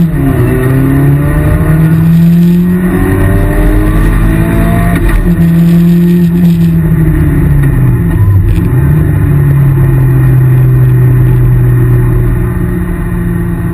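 Rally car's engine heard from inside the cabin, driven hard on a stage. The pitch drops at a gearshift right at the start and climbs until a second shift about five seconds in. It then eases down, dips briefly near eight and a half seconds, and runs steadily after that.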